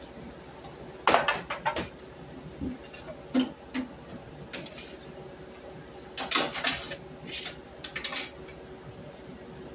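A metal utensil clinking and scraping against a skillet and a glass serving dish as fried sweet plantains are lifted out of the pan. It comes in several short bouts of clatter, the loudest about a second in and again around six seconds in.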